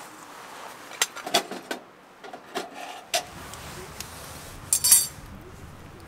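Small metal items clinking and knocking as they are handled: a few separate sharp clicks, with the loudest group of clinks near the end.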